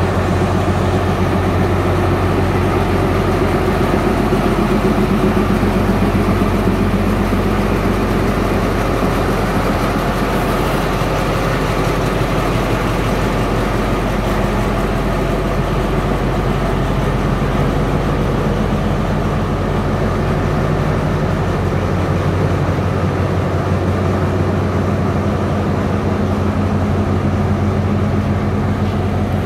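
Alstom ALS-class diesel-electric locomotive idling steadily with a low, even engine hum.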